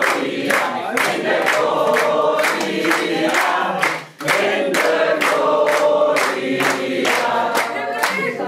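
A group of people singing together while clapping along in a steady rhythm, about three claps a second, with a brief break about four seconds in.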